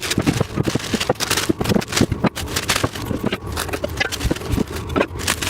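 Packing material being pulled off and crumpled as parts are unwrapped: dense, irregular crinkling, crackling and scraping.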